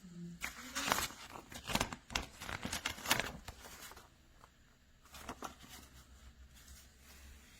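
Clicks and rustling from handling small magnetic building blocks and their storage box, busiest in the first four seconds, with a few lighter clicks about five seconds in.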